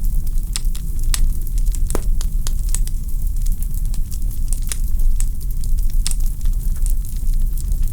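Wood fire in a fireplace crackling: irregular sharp snaps and pops, several a second, over a steady low background.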